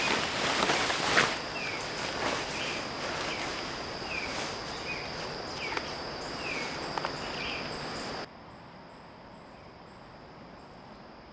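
Outdoor ambience of a steady high insect drone with short falling chirps repeating about once a second. About eight seconds in it cuts suddenly to a quieter stretch of fainter insect drone and faint high chirps.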